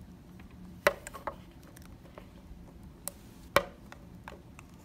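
Black plastic cushion compact handled and opened by hand: a few sharp plastic clicks and taps, the two loudest about a second in and about three and a half seconds in.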